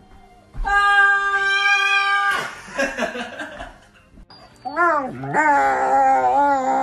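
A single long, steady, high cry lasting under two seconds, then dogs howling together from about two-thirds of the way in, their pitch wavering up and down.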